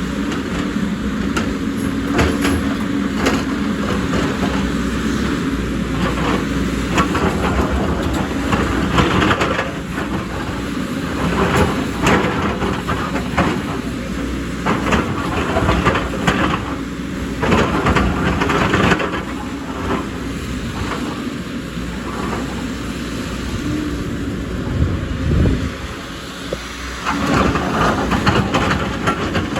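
JCB excavator's diesel engine running steadily while it works, with frequent metallic clanks and scrapes as it digs.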